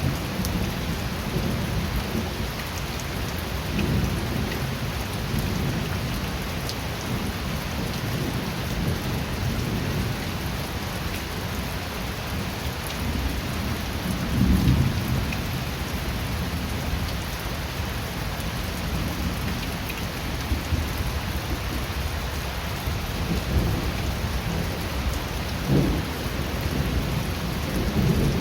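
Steady rain falling, with low rolling thunder that swells about fifteen seconds in and again near the end.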